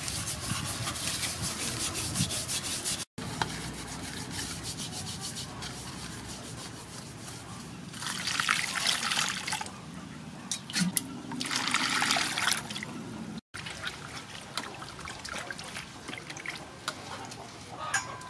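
Hands rubbing coarse salt over the skin of a raw fish in an aluminium basin, a gritty scraping, then water splashing and sloshing as the fish is washed in the basin, loudest in two bursts about eight and twelve seconds in.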